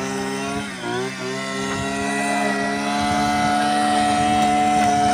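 An engine running steadily with an even, pitched drone. Its pitch dips briefly about a second in, then holds level.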